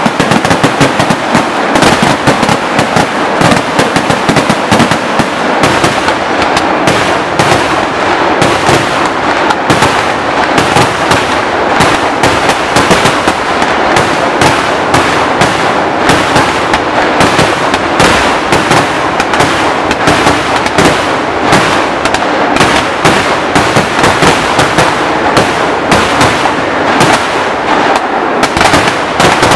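Kerala temple-festival fireworks (vedikkettu) going off at ground level in a dense, unbroken string of rapid, loud bangs and crackles, with no pause between them.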